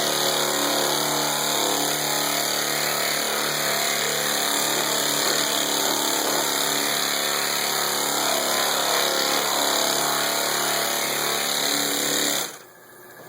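Large pneumatic body sander running steadily on body filler, with a strong hiss of air alongside its motor hum; it shuts off abruptly near the end.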